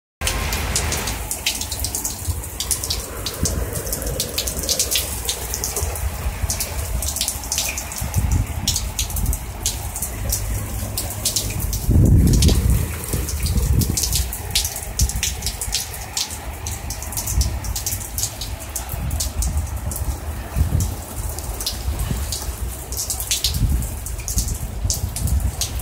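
Heavy rain falling steadily on pavements and grass, with frequent sharp ticks of drops landing close by. It swells louder and deeper about twelve seconds in.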